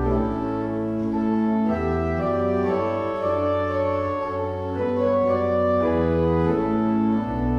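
Organ music: slow, sustained chords that change about every second over held bass notes.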